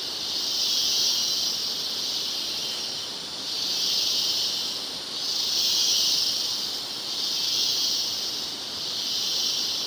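Insect chorus, likely cicadas: a loud, high hissing drone that swells and fades in slow waves about every two seconds.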